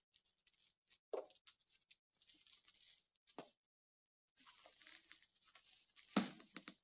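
Faint rustling and handling noises from objects being moved about, with a few soft knocks, the loudest about six seconds in.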